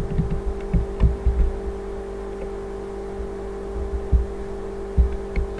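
Dull, low knocks of typing on a computer keyboard, clustered in the first second or so, then two mouse clicks about four and five seconds in, heard through a desk microphone over a steady electrical hum.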